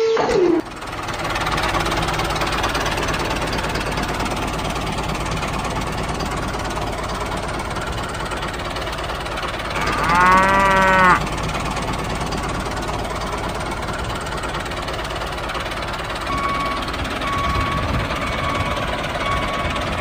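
A steady tractor-engine running sound, with a cow mooing once, loudly, about ten seconds in. Near the end a short beep starts repeating about once a second, like a vehicle's reversing alarm.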